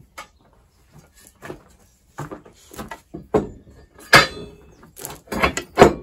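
Cast malleable-iron sawmill guide rail sections clanking and scraping against each other as one is pulled out of an upright stack and set down on a workbench. The loudest metal clanks come about four seconds in and again near the end.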